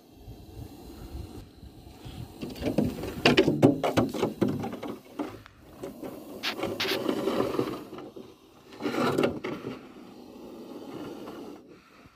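Clattering and scraping of hard objects being handled, in several bursts of rapid clicks with quieter rustling between them.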